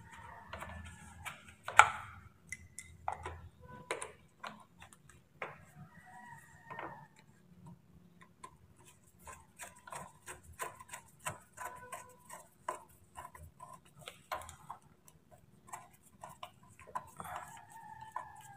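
Screwdriver working a small screw at the scooter's body panel, with small metal fittings clicking against each other: a run of light, irregular ticks and scrapes, closer together past the middle.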